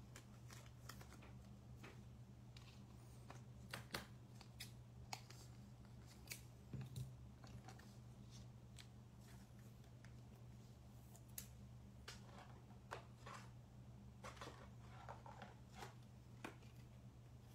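Near silence: a steady low hum with faint, scattered clicks and rustles of trading cards being handled.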